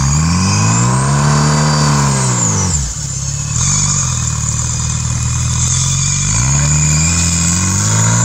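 Off-road buggy engine revving under load, its pitch swelling up and falling back over the first few seconds. It dips briefly, then comes back and climbs again to hold high near the end.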